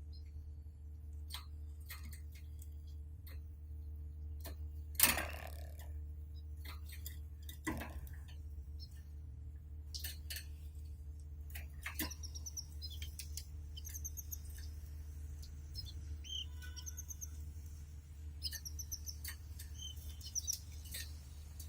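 Canary chirping in short, high, rapidly repeated trilled notes from about halfway through, over a steady low hum. Before that there are scattered sharp clicks and taps, with one louder knock about five seconds in.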